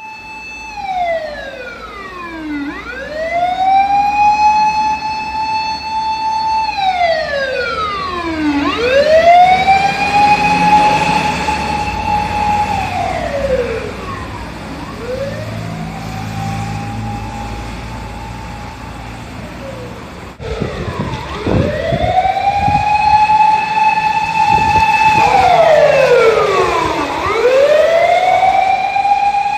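Emergency vehicle siren wailing in slow cycles about every six seconds: a quick rise, a high steady note held for a few seconds, then a long slide down, with a low traffic rumble beneath. About two-thirds of the way in the sound breaks off for a moment, and the siren comes back louder.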